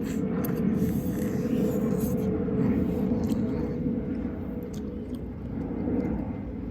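A steady low engine-like rumble with a few faint clicks.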